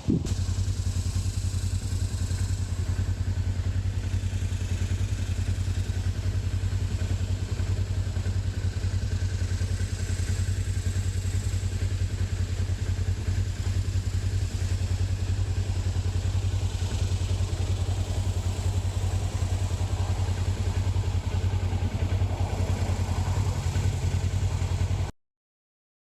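An engine running steadily at constant speed, its low drone shifting slightly about 22 seconds in. The sound cuts off abruptly near the end.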